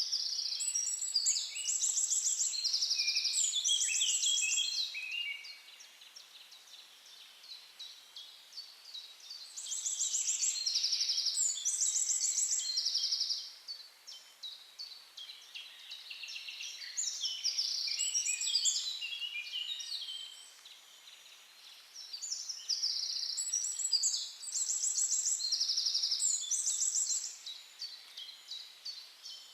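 A songbird singing long, complex phrases of rapid high trills and chirps, in four bouts of about four seconds each with short pauses between.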